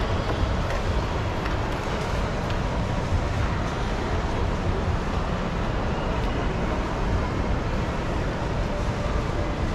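Steady low rumbling background noise at an even level, without distinct events.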